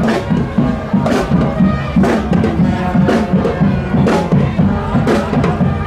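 School marching band playing, a strong drum beat about once a second with quicker drumming and held notes from wind instruments in between.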